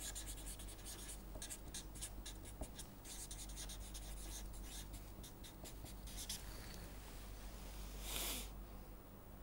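Marker pen writing on paper, a run of quick, faint scratchy strokes for about six seconds. A single short hiss follows about eight seconds in.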